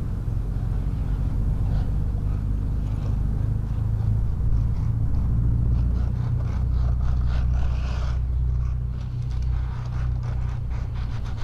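Acura Integra's engine running steadily with a low rumble. In the last few seconds it is joined by a run of quick scraping and clicking sounds.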